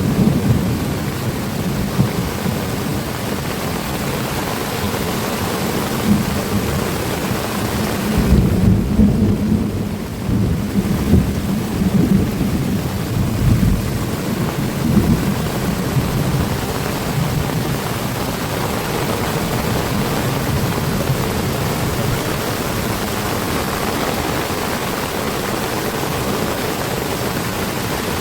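Heavy rain pouring steadily, with a deep rumble underneath that swells about eight to eleven seconds in.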